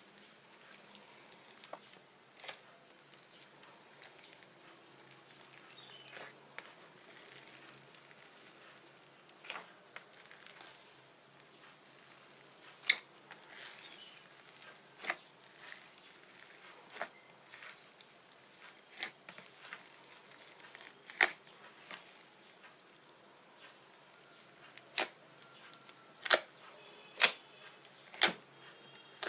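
Fluffy slime being played with, giving irregular sharp pops and clicks as it is pressed and stretched. The pops come more often and louder near the end.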